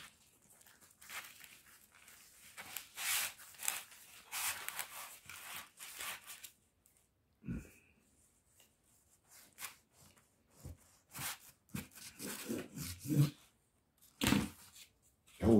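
Hands rolling up a large pizza in its cardboard box: scratchy rustling and crackling of crust and cardboard, with a knock about seven and a half seconds in and another near the end.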